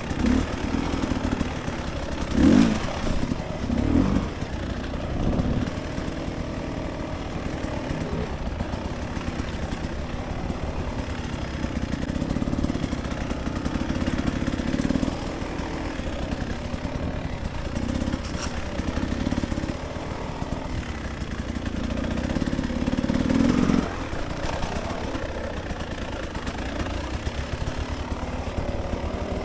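Dirt bike engine running at trail speed, with quick throttle blips a few seconds in, a longer pull in the middle and the strongest surge shortly before the end, along with some clatter from the bike.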